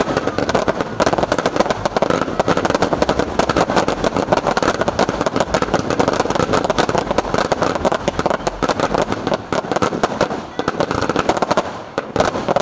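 Fireworks going off in a dense, continuous barrage of rapid cracks and pops, thinning a little near the end.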